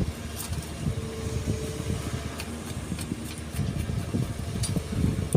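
Excavator's diesel engine running with a low, uneven rumble, and a brief steady whine about a second in.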